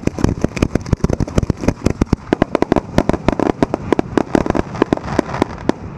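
A rapid volley of aerial firework shells fired from mortar tubes at close range: many sharp booms in quick succession, several a second. Near the end a dense crackling builds.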